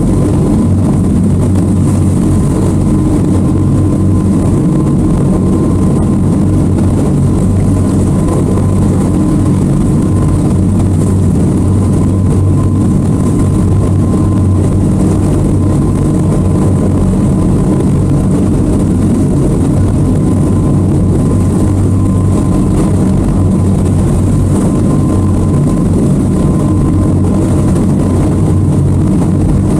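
Twin outboard motors on a towboat running steadily under load while towing a boat on a line: a continuous engine drone with a faint steady whine above it.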